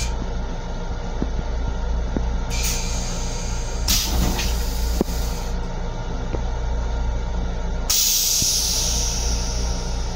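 Interior of an M7 electric railcar running, a steady low rumble. Bursts of air hissing come in over it: a short one about two and a half seconds in, another about four seconds in, and a longer, louder one near the end.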